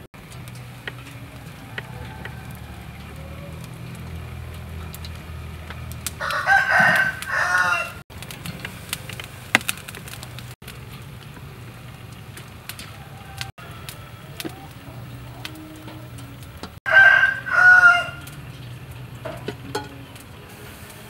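A rooster crowing twice, each crow lasting about a second and a half, the first about six seconds in and the second about ten seconds later, over a faint steady low hum.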